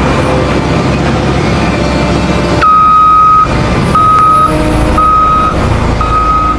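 Heavy vehicle engine rumble, then a reversing alarm beeping about two and a half seconds in: one longer beep followed by three shorter ones, about one a second.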